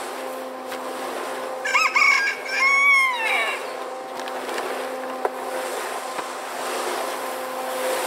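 A rooster crows once, two short notes and then a longer arching one, about two seconds in. Under it runs the steady hum of a Kushlan electric concrete mixer turning its drum.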